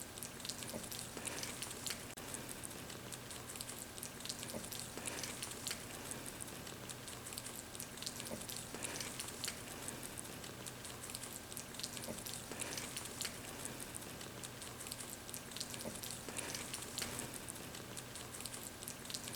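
Baby rabbits nibbling and chewing wild greens such as yarrow: a faint, irregular patter of tiny crunches and leaf rustles.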